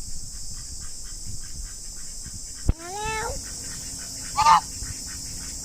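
Ducks calling: a rising honk about three seconds in, right after a sharp knock, and a louder, shorter call about a second and a half later.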